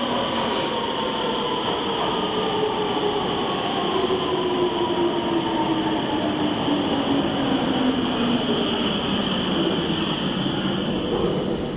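A RET Rotterdam electric train slowing down. Its traction motors whine and fall steadily in pitch as it brakes, over continuous rolling noise on the rails.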